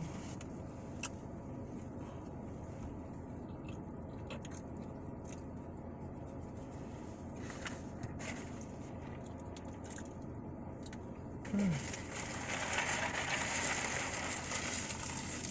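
Quiet eating sounds, chewing and handling of fast food, with a few light clicks over a steady low background hum. About three-quarters of the way through a louder rustling hiss sets in.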